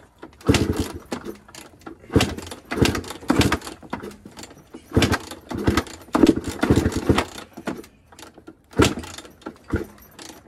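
KTM two-stroke dirt bike kicked over again and again, each kick a short burst of the engine turning over that dies away without catching. A hard-starting engine that will not fire.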